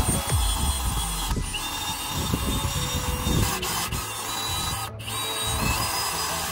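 Cordless drill boring into the steel wall of a gas cylinder, its bit kept wet with poured water; the drill runs with a continuous grinding whine, with a brief break about five seconds in.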